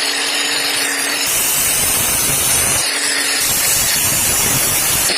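A power tool working wood, giving a loud, steady rushing noise with a low hum that comes and goes.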